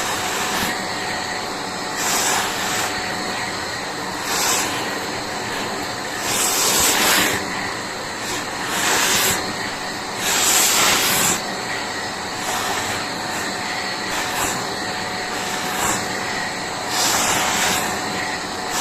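Vacuum cleaner with a brush nozzle running steadily with a faint motor whine, being used to groom a pet. The hiss of its airflow swells for about a second at a time, about seven times.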